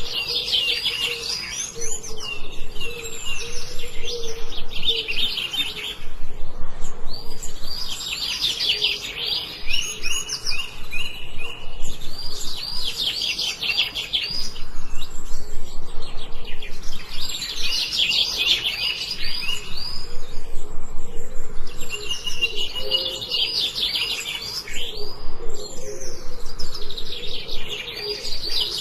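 Songbirds singing in a forest: repeated phrases of rapid, high chirps, each lasting a few seconds with short pauses between.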